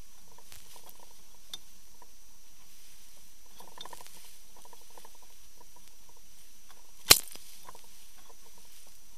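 Underwater sound of churning water around a boat-mounted camera just below the surface: bubbles and splashes pattering and crackling, over a faint steady high whine. One sharp knock stands out about seven seconds in.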